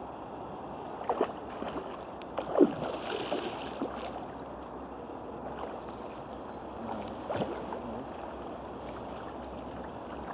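Water splashing as a hooked mirror carp thrashes at the surface close to the bank while it is played towards the net: a few separate splashes, the loudest about two and a half seconds in, over steady background noise.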